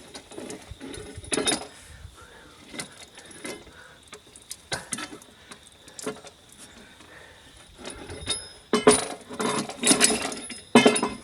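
Steel pry bar levering at the jammed hammer rotor of a wood chipper: scattered knocks and metal clinks, then from about nine seconds a dense run of metallic clinking and clattering as the rotor starts to come free. The hammers are stuck by wood wedged between them and the chipper's frame.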